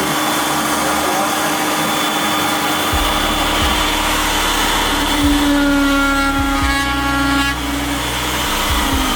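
An electric motor, most likely a shop power tool, running steadily, with a higher-pitched whine joining for about two seconds a little past the middle.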